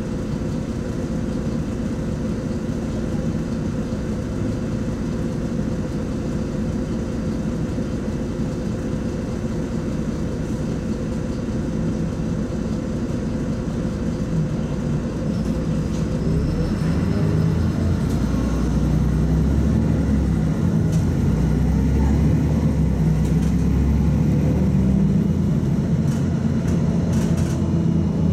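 LiAZ-5292.22 city bus heard from inside the passenger cabin: the diesel engine idles steadily while the bus stands. About halfway through, the engine rumble deepens and grows louder as the bus pulls away and accelerates.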